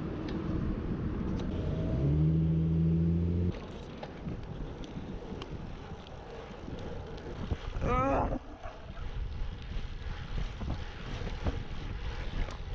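Wind buffeting a GoPro's microphone over road and traffic noise while riding a road bike. About two seconds in, a low steady tone sounds for about a second and a half and stops suddenly. Near eight seconds there is a short rising squeal.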